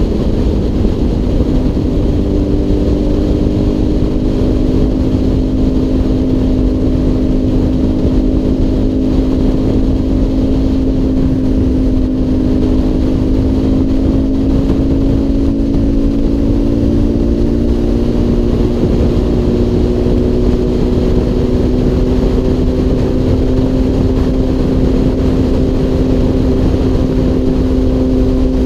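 Honda CBR1000RR inline-four engine running at a steady cruise, heard from the rider's helmet under a dense low rush of wind. The engine note climbs slightly about halfway through.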